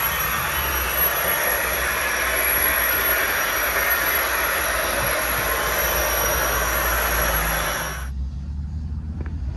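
Model high-speed train running over the viaduct's track: a steady rushing hiss of wheels and motor that cuts off abruptly about eight seconds in. After that, quieter rolling with a couple of clicks.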